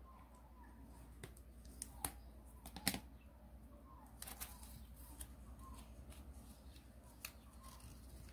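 Origami paper being folded and creased by hand on a cutting mat: soft rustles and crinkles with a few sharp taps and clicks, the loudest about three seconds in.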